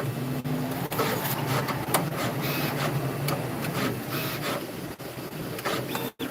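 Machine running with a whir of short motor tones that shift pitch every second or so, mixed with scattered clicks and knocks.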